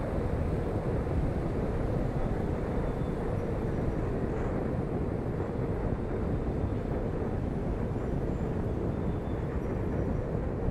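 Steady road noise of a car cruising at highway speed, tyres on a concrete road and wind rushing past a camera mounted outside on the car's rear window.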